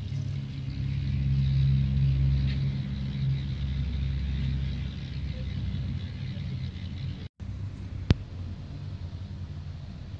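A motor vehicle engine running with a steady low rumble. The sound drops out for an instant, and a single sharp click follows about eight seconds in.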